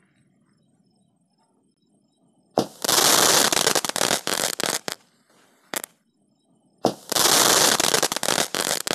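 Ajanta Magic 7 Star ground firework going off in two loud bursts of crackling sparks, each about two seconds long. The first starts about two and a half seconds in and the second near the end, with a single pop between them.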